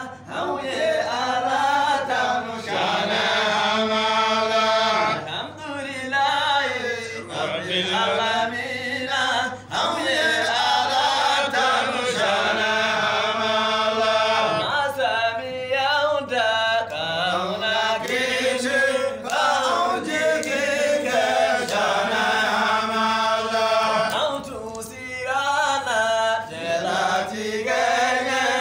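Men's voices chanting a Sufi devotional chant without instruments, with long held notes that slide up and down in phrases of a few seconds and brief breaths between them.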